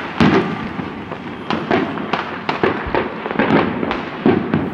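A dense, irregular barrage of New Year fireworks bangs with echoing tails, two or three loud reports a second over smaller crackles. The speakers take some of the reports for celebratory gunshots.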